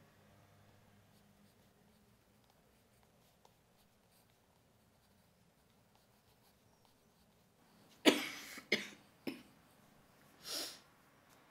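Faint pencil scratching on paper, then a young woman's fit of coughing about eight seconds in: one hard cough, two shorter ones right after, and another a second later.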